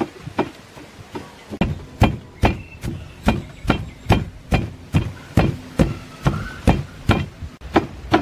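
Long wooden pestle pounding sliced lemongrass in a stone mortar: dull thuds, a few spaced strokes at first, then a steady beat of about two to three strokes a second.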